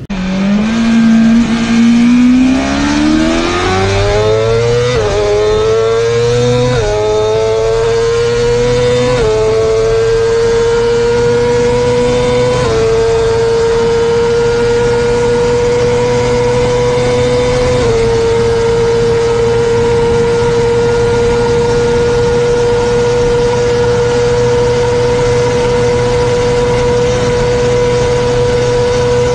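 BMW S1000RR's 999 cc inline-four engine at full throttle, accelerating through the gears toward top speed. Its note climbs, with five quick upshifts in the first eighteen seconds, each a short dip in pitch before it climbs again. After the last shift it holds a steady, high, nearly level note.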